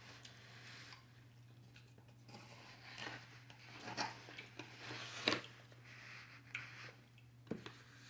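Close-up eating sounds: chewing and smacking on chicken wings, with rustling and a few sharp clicks and knocks as the cardboard takeout box is handled, over a steady low hum.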